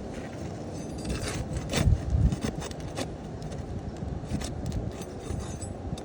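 A flat pry bar scraping and clicking against asphalt shingles, working under them to break the seal strips so a damaged shingle can be pulled out. The strokes are irregular and loudest about two seconds in.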